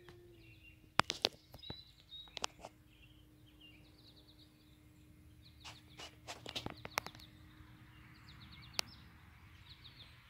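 Radio-controlled Cessna 182 model's motor and propeller droning faintly overhead at a steady pitch that dips slightly near the start. Birds chirp in short runs and a few sharp clicks sound over it.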